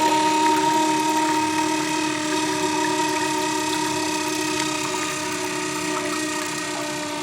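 Toilet giving a steady, whistling hum over the hiss of running water, holding its pitch and slowly getting quieter.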